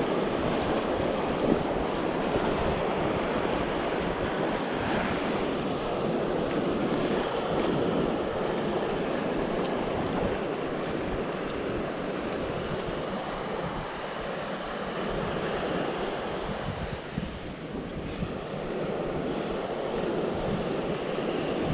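Sea surf breaking and washing over a sandy beach, a steady rush of waves.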